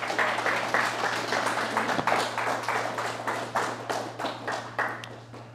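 Audience applauding, with individual claps distinct, thinning out and dying away near the end. A steady low hum runs underneath.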